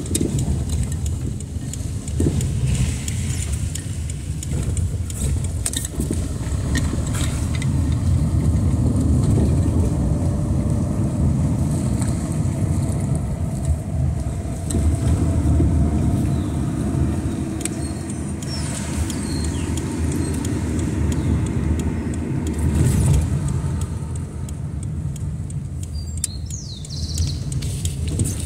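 Car driving on wet streets, heard from inside the cabin: a steady low rumble of engine and tyres on wet pavement.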